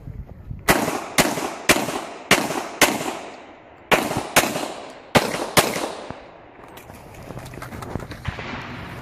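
Glock 35 .40 S&W pistol firing rapid shots on a competition stage: nine shots about half a second apart, each ringing off, then a pause of about three seconds with small clicks and rustle before another shot at the end.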